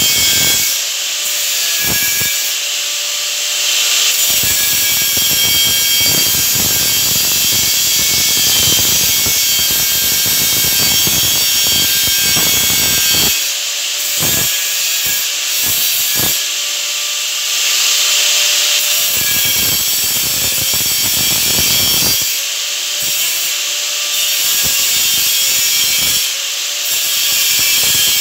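Angle grinder with an abrasive disc working metal: a continuous high-pitched grinding hiss, with the motor's whine sagging and recovering in pitch several times as the disc is pressed into the work.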